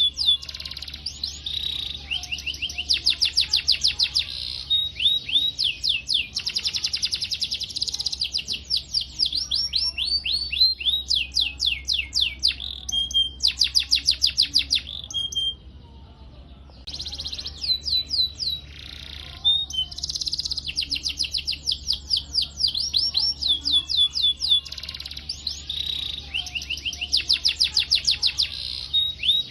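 Domestic canary singing long rolling trills of rapid, evenly repeated sweeping notes mixed with chirps, pausing briefly about halfway before rolling on.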